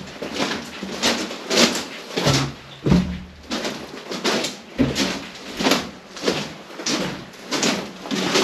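Footsteps of people walking along a mine tunnel, a steady pace of about three steps every two seconds.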